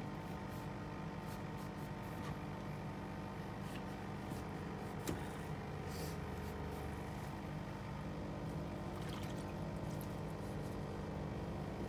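A steady low hum with a few faint clicks and light handling noises.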